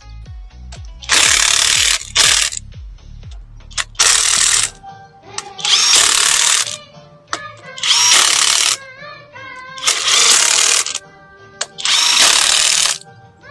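A power tool running in repeated one-second bursts, about every two seconds, over background music.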